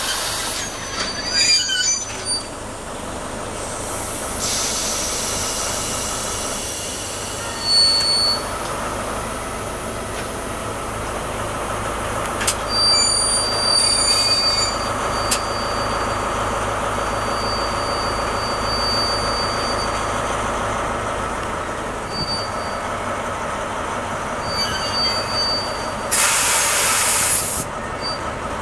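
A slow work train rolling past, its Colas Rail diesel locomotive engine running steadily under the rumble of the wagons. Thin high wheel squeals come and go, longest from about 12 to 20 seconds in, with a short burst of hiss near the end.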